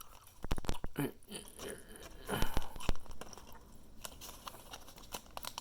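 Handling noises: scattered clicks and short rustles as tiny styrofoam balls are fished out of their small bag, busiest in the first three seconds.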